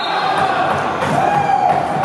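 Spectators in a sports hall cheering and chanting, with one voice holding a long call about a second in.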